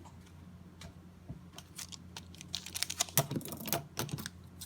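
Trading cards and a foil pack being handled: scattered light clicks and rustles of card stock, coming thick and fast for a second or two past the middle, over a steady low electrical hum.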